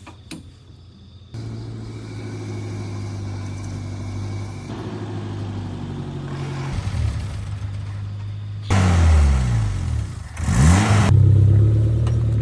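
Toyota 5K four-cylinder engine in a Suzuki Katana starts running about a second in and idles steadily. Near the end it is revved twice with rising and falling pitch, then settles to a faster, louder idle.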